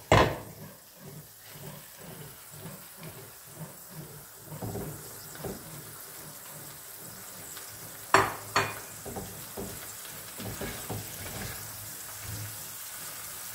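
Tomato sauté sizzling in the pan while it is stirred. There is a sharp knock against the pan at the start and two more in quick succession about eight seconds in.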